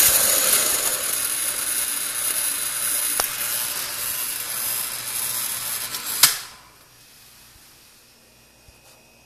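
Motor-driven Pharos conical-burr coffee grinder grinding beans: a steady, gritty whirring that slowly grows fainter, then stops with a sharp click about six seconds in.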